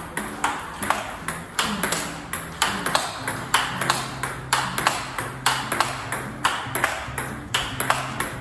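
Celluloid-plastic table tennis ball in a steady rally, hit by rubber-faced bats and bouncing on the table: sharp clicks at an even pace of about two a second.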